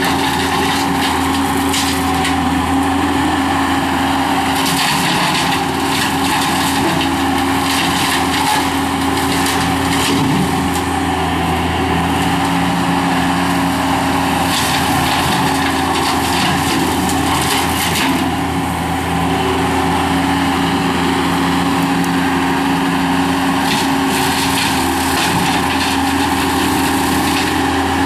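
Skid steer loader running with a CID Xtreme 60-inch hydraulic brush cutter spinning: a steady engine and hydraulic hum under a constant noisy rush. Frequent short cracks and crunches throughout as the blade chops through brush and wood.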